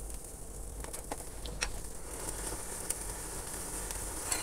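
Butter-basted chicken on a wire grill rack over an open gas flame, sizzling and crackling as the butter drips into the fire, with a few sharp pops.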